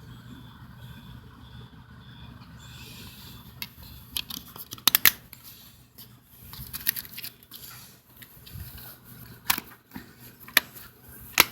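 Handling of a DVD box set's plastic cases and paper inserts: rustling with several sharp plastic clicks, the first after a few seconds of low background hum.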